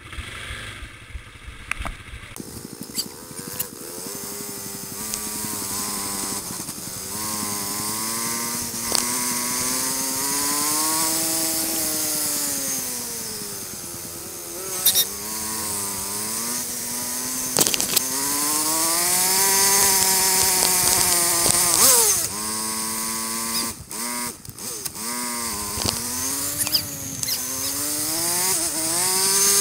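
ATV engine running under way, its pitch rising and falling over and over as the throttle is opened and eased off, with wind rushing on the microphone and occasional sharp knocks from the bumps.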